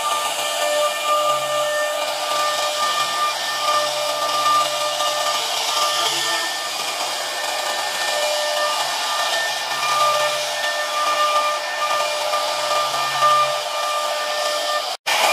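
CNC router spindle whining steadily as its profile bit cuts grooves in a wooden panel, a hiss of cutting laid over several constant high tones. The sound drops out for an instant near the end.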